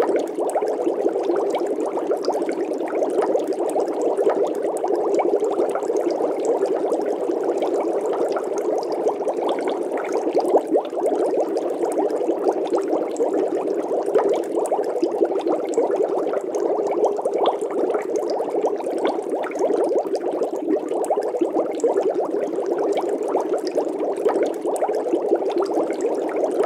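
Steady, dense bubbling of water with a low, even rush.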